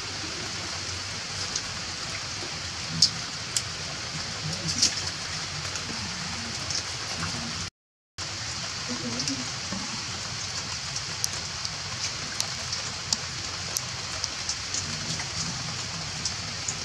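Steady rain falling, a continuous hiss dotted with many sharp drop ticks. The sound cuts out briefly about eight seconds in.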